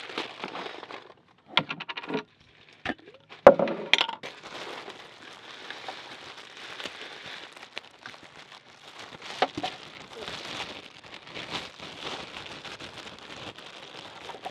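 Thin plastic bread bag crinkling and rustling as hands open it and reach in for slices. Before that, a quick run of clicks and then one sharp knock about three and a half seconds in as the metal screw lid comes off a glass jar of marmalade and is set down.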